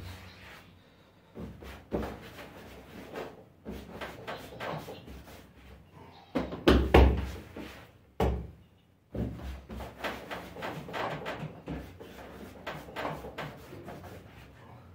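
Scattered knocks and thumps of a tray and dough balls being handled on a work surface, the heaviest thump about seven seconds in.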